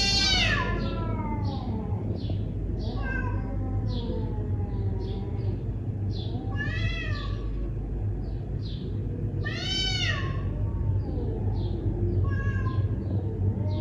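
Cats yowling at each other in a territorial standoff: long drawn-out calls that rise and fall in pitch, about five of them a few seconds apart, the loudest at the start and around the middle. Short high chirps run behind them.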